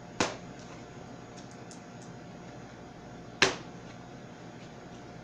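Two sharp knocks about three seconds apart, the second louder, as lumps of coloured cooked sugar for pulling are put down on a silicone mat on the work table.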